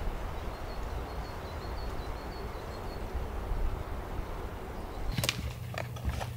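Steady outdoor forest background noise with a bird giving a quick run of high chirps in the first few seconds. About five seconds in, close footsteps of hiking boots on rocks and dry pine needles take over: sharp crunches and scuffs.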